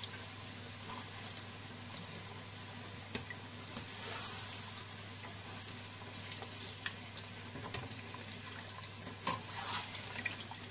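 Potato fries frying in a pot of hot oil: a steady bubbling hiss, with a few light clicks of a slotted spoon against the pot as the fries are lifted out to drain.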